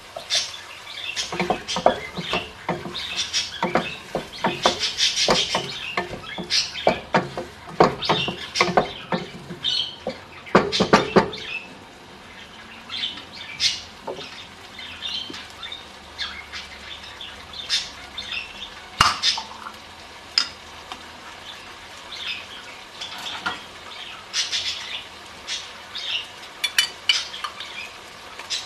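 Kitchen cooking sounds at a gas stove: clinks, knocks and clatter of food and utensils going into a pot. They come thick and fast for about the first twelve seconds, then thin out to scattered taps.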